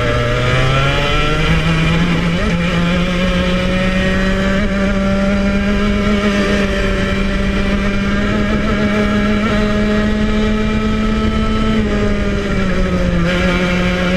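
115cc TKM two-stroke kart engine running at full throttle, its note jumping up about a second in and then climbing steadily for some ten seconds as the kart gathers speed, before dropping back a little near the end.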